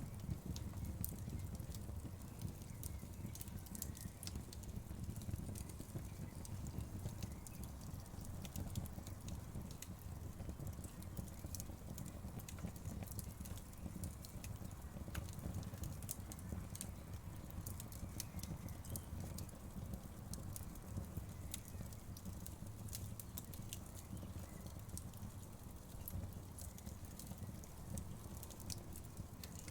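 Wood fire burning steadily, with many small irregular crackles and pops over a low rumble of the flames.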